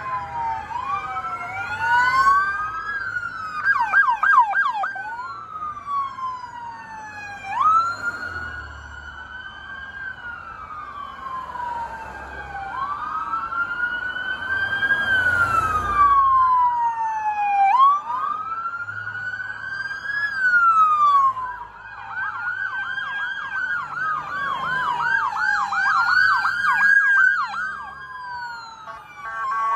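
Several police cruiser sirens sounding together, overlapping slow rising-and-falling wails with bursts of fast yelping sweeps, over the low rumble of passing vehicles.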